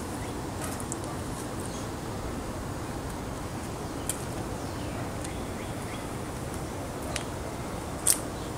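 Steady outdoor background noise with a few short, sharp, high clicks: one about four seconds in, one near seven seconds and a louder one just after eight seconds.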